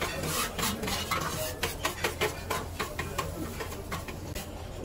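Metal spatulas scraping and tapping on a flat-top steel griddle as beaten egg is pushed and folded, in quick irregular strokes.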